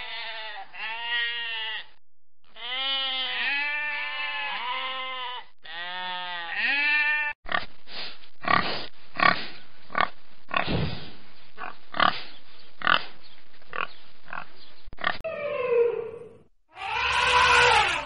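Sheep bleating over and over, a string of wavering calls for the first seven seconds or so. Domestic pigs then grunt in quick, irregular short grunts, with one drawn-out falling squeal. Near the end an African elephant gives a loud call.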